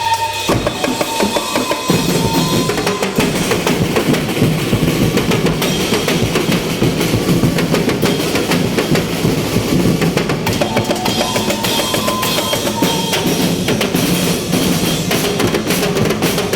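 A group of drums playing a fast, dense, continuous beat in a sound check, with bass drum and snare strokes.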